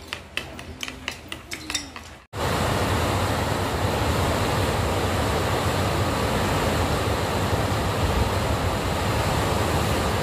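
Spoons and chopsticks clinking against sauce dishes and glasses for about two seconds, then an abrupt cut to a steady, loud rushing noise with a deep rumble underneath.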